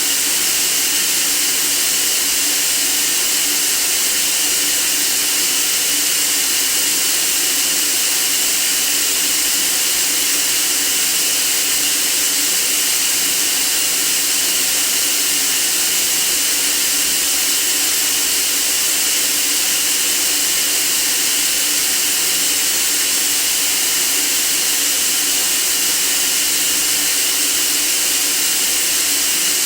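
Steady white noise for sleep: an even, unbroken hiss that is strongest in the high treble and does not change.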